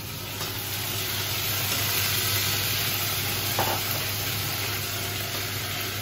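Food frying in a hot pan, a steady sizzle, with one short knock about halfway through.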